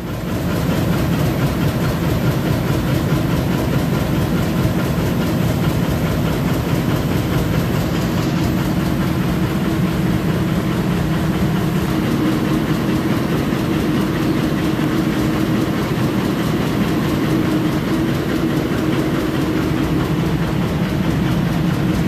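Steady drone of running machinery, with a low hum running through it.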